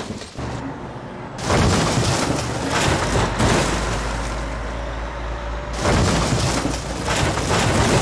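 Volvo truck crash-test impact: loud crashing noise starting about a second and a half in, coming in repeated bursts with a low rumble between them.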